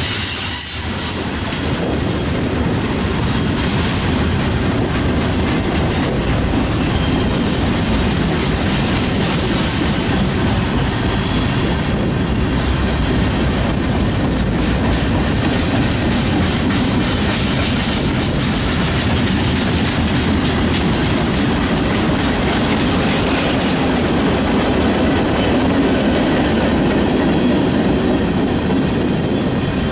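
Freight cars of a long mixed freight train rolling past at close range: a steady rumble of steel wheels on rail, with a run of rapid wheel clicks over the rail joints.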